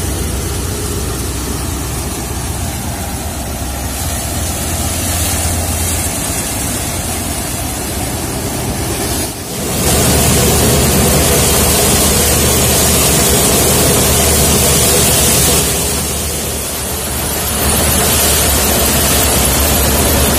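Belt-driven threshing machine running: a steady low hum under a loud rushing noise. The sound breaks off briefly about nine seconds in and is louder after it.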